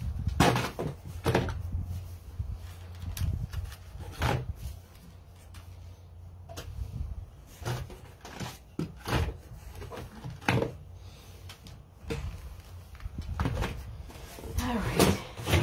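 Scentsy wax bar packages being handled and put back into their box: an irregular series of knocks, taps and rustles.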